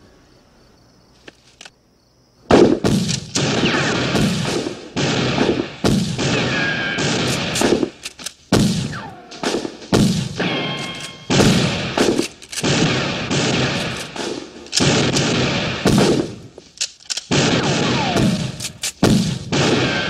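Sustained barrage of gunfire: many shotgun and gun blasts in quick succession, overlapping and echoing. It starts about two and a half seconds in, after a quiet opening.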